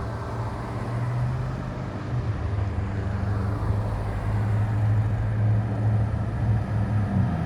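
A motor vehicle running, its low engine hum over road noise, growing louder toward the end as it comes closer.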